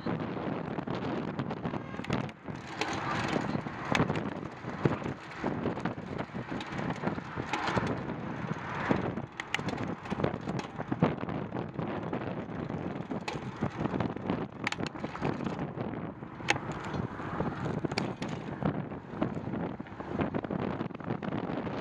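A bicycle in motion on a concrete road: wind buffeting the microphone over the rolling tyre noise, with frequent short knocks and rattles from the bike jolting over bumps.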